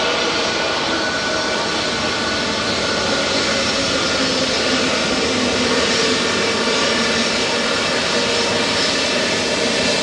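Airbus A320neo's CFM LEAP-1A jet engines, heard close up as a steady, loud rushing noise with a faint whine.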